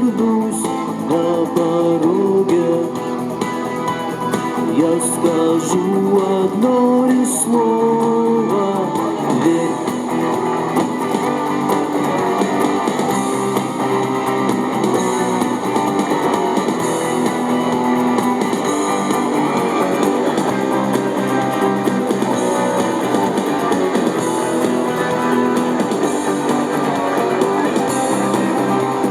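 Guitar music from a rock song cover: strummed and plucked guitars over a bass line, without lyrics.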